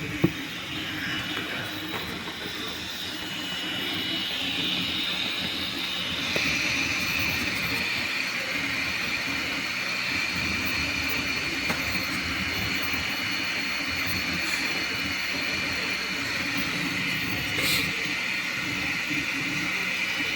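3D printer running: a steady hiss with high whining tones that change pitch about six seconds in, after a sharp click at the start.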